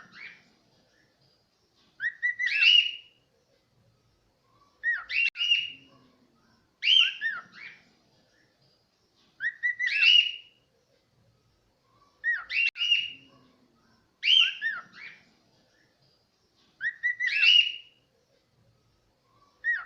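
Cockatiel whistling its song: the same short phrase of rising and falling whistled notes, about a second long, repeated every two to three seconds, around eight times.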